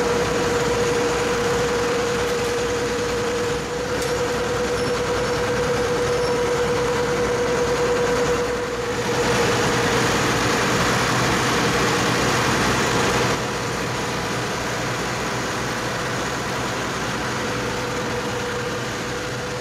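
Recycled-plastic lumber extruder line running: a steady machine drone with a constant mid-pitched whine. The noise grows louder about nine seconds in and drops back about four seconds later.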